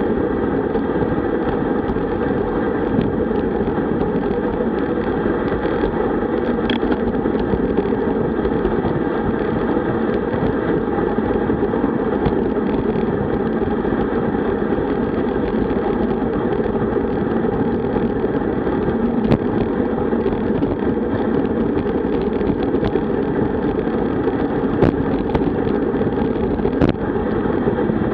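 Steady rush of wind buffeting the microphone of a bike-mounted camera, with tyre noise, as a road bike rides fast on a slight descent at around 45–50 km/h. A few faint clicks come through it.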